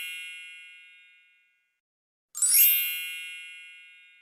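A bright chime ringing out twice. The first is already fading as the sound begins, and a second strike about two and a half seconds in starts with a quick upward shimmer and then fades away.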